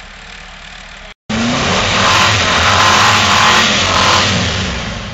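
An off-road SUV's engine revving hard under load as its wheels spin and churn through deep snow; it starts abruptly about a second in after a brief dropout, is loudest in the middle and eases off near the end. Before the dropout, a quieter low engine sound.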